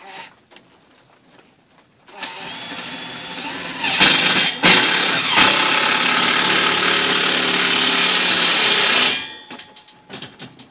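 Makita cordless driver running a screw through a steel garage door track bracket into the wooden jamb. It starts softly about two seconds in, runs harder from about four seconds with two short breaks, and stops abruptly about nine seconds in.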